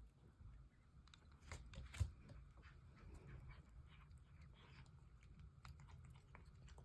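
Near silence: quiet room tone with faint scattered clicks and one sharper click about two seconds in.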